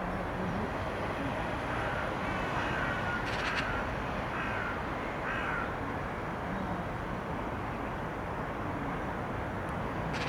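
A crow cawing three or four times, a couple of seconds in, over a steady background hiss and rumble.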